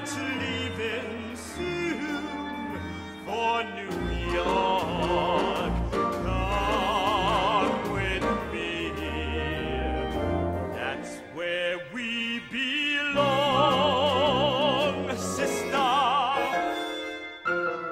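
A male tenor sings a jazzy operatic song with wide vibrato over orchestral accompaniment. The voice breaks off briefly about two-thirds of the way through, then comes back in.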